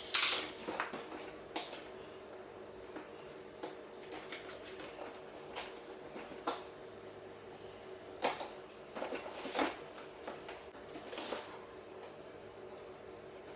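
A ring light kit's packaging being opened and handled: scattered clicks, scrapes and rustles, loudest near the start and again about eight to eleven seconds in.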